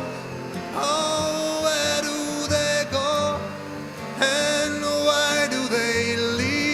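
Music soundtrack: a song with a sung melody over band accompaniment.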